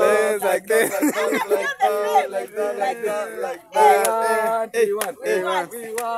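Voices singing, with some notes held steady, and a few sharp claps near the end.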